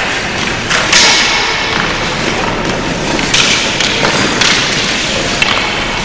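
Children's ice hockey play in an indoor rink: hockey sticks and puck knocking on the ice, with skate scraping underneath. Several sharp knocks, the loudest about a second in.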